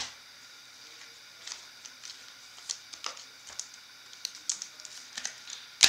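Trading cards and pack wrappers being handled: a run of light clicks and rustles, with a sharp snap near the end.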